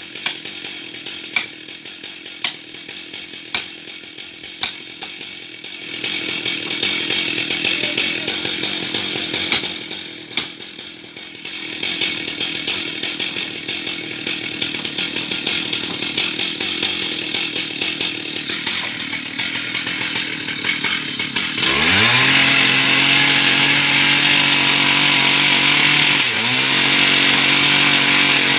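Stihl MS 880, a large two-stroke chainsaw, running in a tree cut: at first it runs low under sharp knocks about once a second, then it is louder and steady, and about 22 seconds in it revs up sharply to full throttle, dips briefly, revs again and winds down at the end.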